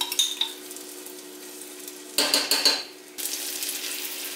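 A spoon clinking against a glass jar and a pot as minced garlic is scooped into melted butter, with a louder clatter about two seconds in; from about three seconds in the garlic sizzles steadily in the hot butter.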